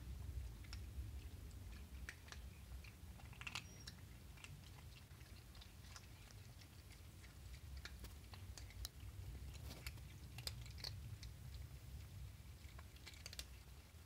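Several cats eating dry kibble off the pavement: faint, irregular crunches and clicks of the pellets being chewed, over a low steady rumble.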